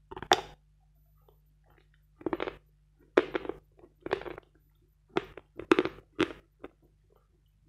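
A piece bitten off a bar of Vatutin chalk with one sharp crunch near the start, then the chalk crunched between the teeth in separate crunches, about one or two a second.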